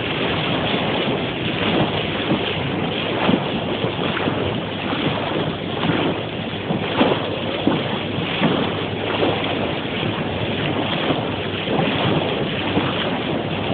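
Water rushing and splashing at the bow of a moving boat, with wind buffeting the microphone.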